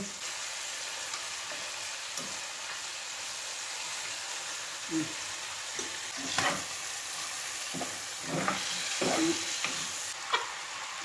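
Chicken pieces sizzling as they fry in oil in a pot, a steady hiss. A few short knocks are heard from about five seconds in.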